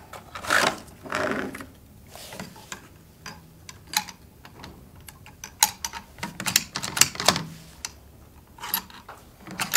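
Handling of a bolt-action rifle and gear on a shooting bench: a few soft rustles, then scattered light clicks and knocks, with a quick run of clicks in the second half.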